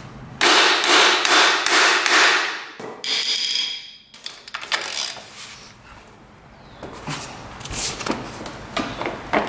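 Hammer blows on a steel socket, driving an undersized socket onto a stripped bolt head to get a grip on it. A fast run of metal-on-metal strikes in the first few seconds, a short metallic ring, then scattered single strikes.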